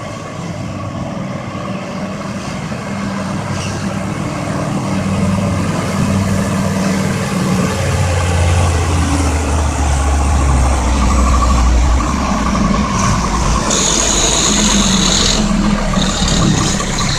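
Heavy vehicle's engine running under load, growing steadily louder and deeper, with a brief hiss about two-thirds of the way through.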